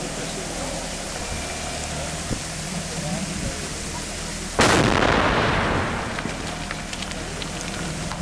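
MultiOne articulated mini-loader's engine running steadily while the machine works. A bit past halfway a sudden loud rushing noise breaks in and fades away over a second or two.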